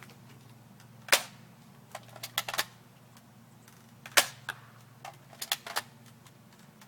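Spring-powered M4 RIS airsoft rifle firing two sharp shots about three seconds apart. Each shot is followed by a few lighter clicks as the spring action is worked again for the next shot.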